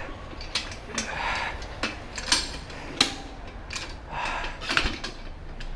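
Irregular metal clicks, clinks and knocks from a motorcycle tire bead breaker being handled and worked on a rear wheel rim, with short scraping and rubbing sounds between them.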